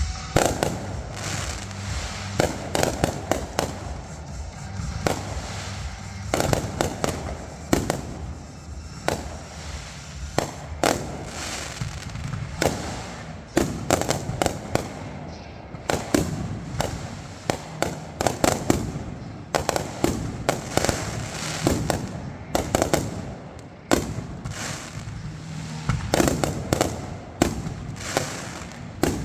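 Consumer fireworks going off in quick succession: many sharp bangs and crackling pops in clusters. Music plays underneath.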